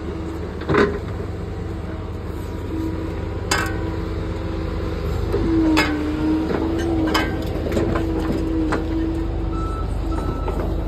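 Compact excavator's diesel engine running under load, with a steady hydraulic whine that wavers as the arm moves and several sharp metal knocks from the arm and bucket. Near the end a travel alarm starts beeping.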